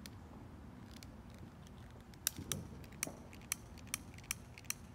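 A handheld lighter clicking repeatedly as it is struck to light a firework's fuse: about seven sharp clicks, roughly two a second, starting about two seconds in.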